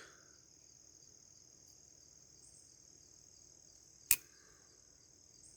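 Steady high chirring of crickets in the background, with one sharp click about four seconds in.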